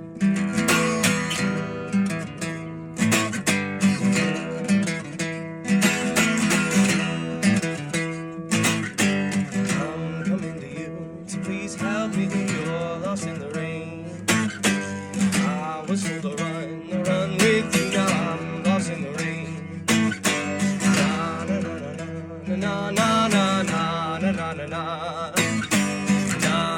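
Acoustic guitar strummed through an instrumental passage of a song, with frequent sharp strokes over ringing chords.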